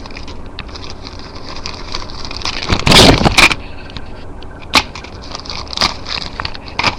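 Packaging being handled and rustled while a laptop is unpacked, with a loud crinkling burst about three seconds in and a few sharp knocks after it.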